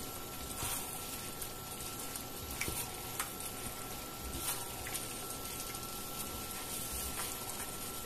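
Braised tofu sizzling in a wok while a plastic spatula stirs it, with a steady hiss and occasional light clicks and scrapes of the spatula against the pan.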